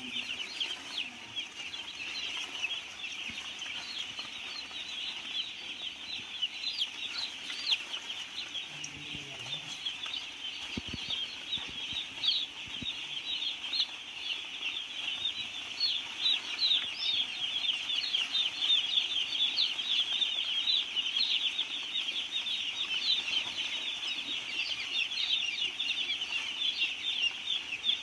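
A large flock of young broiler chicks peeping all at once, hundreds of short high chirps overlapping into a continuous chatter that grows denser in the second half.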